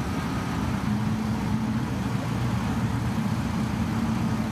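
A drag-racing truck's engine idling, a steady low rumble with a hum that settles in about a second in.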